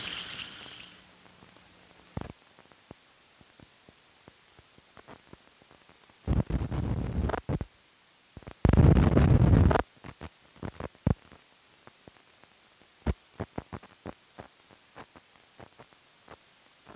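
Old optical film soundtrack running over leader: scattered clicks and pops, with two loud bursts of buzzing noise about six and nine seconds in.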